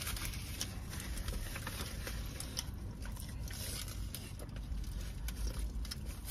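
Chewing with scattered small clicks and rustles as a small plastic sauce cup is picked up and sipped from, over a steady low rumble in the car cabin.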